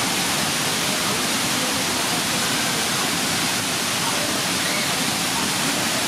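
Steady rush of whitewater churning through a rocky gorge below a waterfall.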